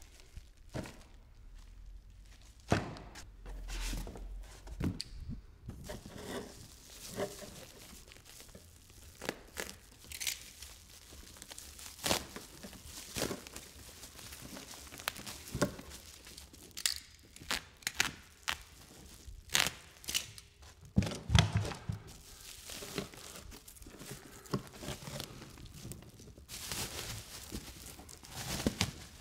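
Pink anti-static bubble-wrap bag being crinkled, pulled and torn off a Tesla Wall Connector, in irregular crackles and rips. A few dull knocks of the unit against its cardboard box, the heaviest about two-thirds of the way through.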